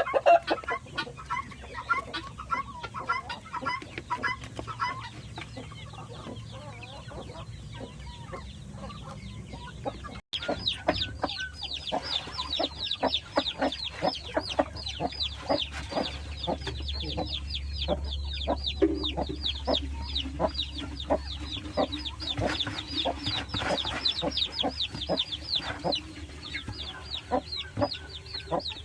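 A flock of chickens clucking and calling without a pause. About ten seconds in, the sound cuts out for a moment and comes back as a denser stream of quick, high, falling calls.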